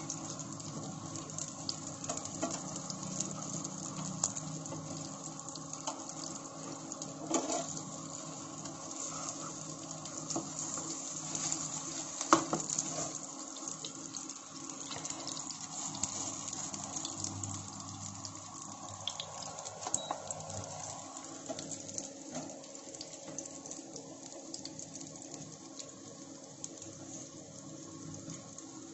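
Potato tikkis shallow-frying in oil in a non-stick pan: a steady sizzling hiss, with a couple of sharp taps of a metal spatula on the pan as the tikkis are turned over.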